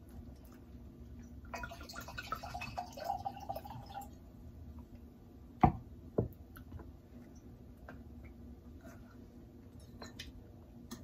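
Faint clicks and small taps in a quiet room, with two sharper clicks a little past halfway, the first the loudest. A soft hiss with a faint held tone runs for a couple of seconds after the start.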